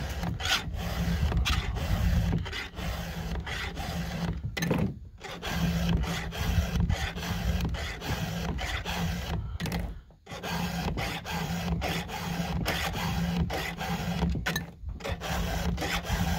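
A 7/32-inch round file rasping across the cutter teeth of a Husqvarna 572 XP chainsaw chain, stroke after stroke by hand. Short pauses come about five, ten and fifteen seconds in.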